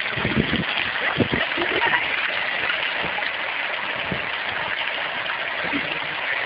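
Steady rush of bubbling water, typical of a hot tub's jets running, with a few soft low thumps in the first second and a half.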